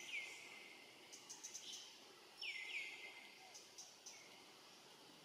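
Outdoor ambience of repeated short bird calls, each sliding down in pitch: one near the start and a pair about two and a half seconds in. They sit over a steady high hiss of insects, with a few faint clicks in between.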